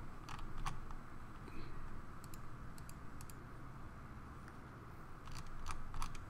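Computer mouse clicking: a scattering of short sharp clicks, several in quick pairs, over a low steady hum.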